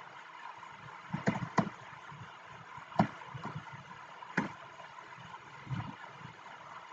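Computer keyboard and mouse clicks: a handful of scattered sharp taps, two close together a little after one second, then single ones every second or so, over a steady background hum.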